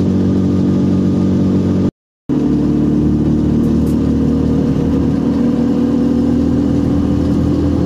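Engine of a small manual-clutch vehicle with a 200 cc engine, heard from inside the cabin while cruising steadily on the road. The sound cuts out briefly about two seconds in, then the steady engine drone resumes with a slightly higher tone.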